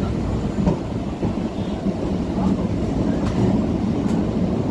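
Electric multiple-unit (EMU) local train running, heard from on board: a steady rumble of wheels on track, with a few sharp clicks as the wheels cross rail joints.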